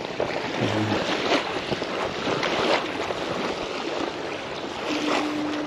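Steady rushing of wind on the microphone and water, with a few short rustles of hands handling a fish while unhooking it. A steady low hum starts near the end.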